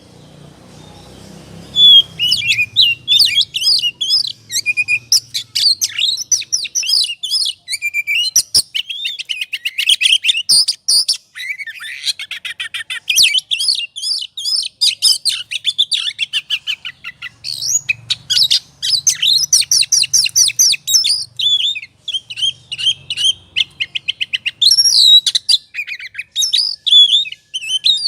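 Oriental magpie-robin (kacer) singing in its agitated, fighting mood: a fast, almost unbroken run of sharp chirps and whistled notes, starting about two seconds in.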